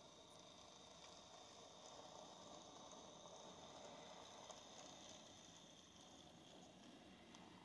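Faint steady whir of a model train's cars rolling on the track, swelling slightly about midway as the cars pass closest.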